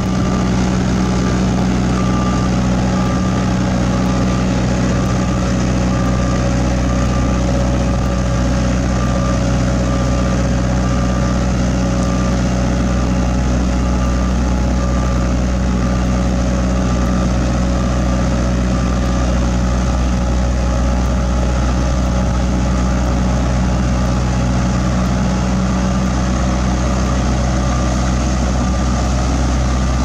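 Heavy diesel road-paving machinery running steadily with a deep engine hum, and a backup alarm beeping repeatedly over it.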